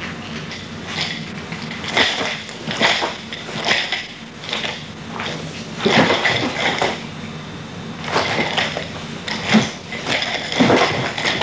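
Nunchaku being swung through a kata: a quick, irregular string of swishes through the air and sharp clacks as the sticks are caught and struck, coming every half second to a second.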